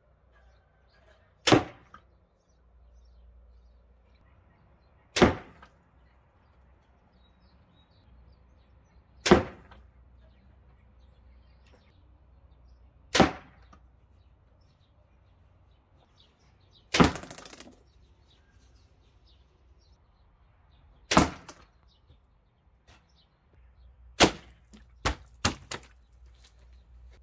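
Arrows tipped with stainless steel field points striking a target, one sharp hit about every four seconds, seven in all. Three quicker knocks follow in close succession near the end.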